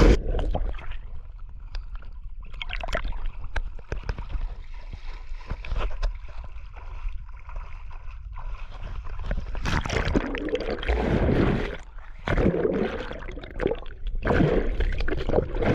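Lake water sloshing and gurgling right against an action camera held at the surface by a swimmer, with irregular splashes over a steady low rumble as the camera dips in and out of the water.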